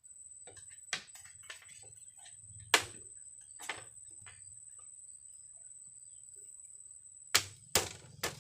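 A few sharp knocks and clicks, the loudest about three seconds in and three quick ones near the end, over a steady high-pitched whine that stops near the end.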